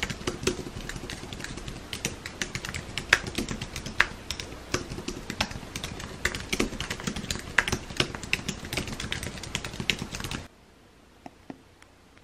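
Fast typing on a computer keyboard: a quick, uneven run of key clicks that stops near the end.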